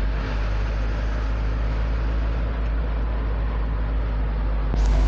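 3-ton pickup truck under way: a steady low engine drone with tyre and road noise, growing louder just before the end.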